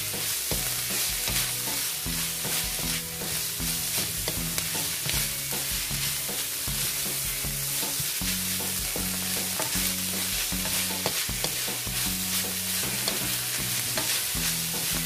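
Minced pork, preserved mustard greens and dried chillies sizzling in a hot nonstick wok, stirred and scraped continuously with a wooden spatula.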